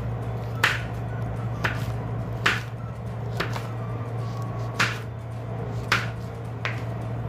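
Kitchen knife slicing green chilies on a cutting board: about seven sharp knocks of the blade on the board, roughly one a second.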